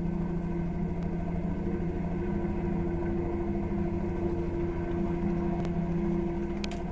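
Bell helicopter running steadily, its engine holding a constant pitch under the rapid low beat of the rotor. A couple of faint clicks come near the end.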